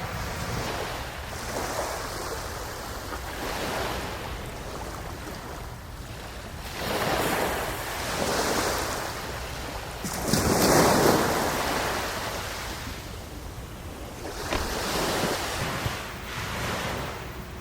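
Sea waves breaking and washing in, in a series of swelling and fading surges, the biggest about eleven seconds in, with a low rumble of wind on the microphone.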